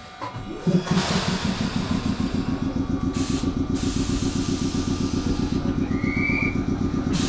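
Choshi Electric Railway train's machinery running with a fast, steady, even throb that starts about a second in, heard through an open window. A short, high rising whistle sounds about six seconds in.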